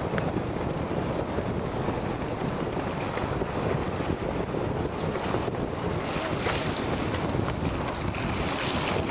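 Steady wind buffeting the microphone over the rush and splash of water, heard from on the water.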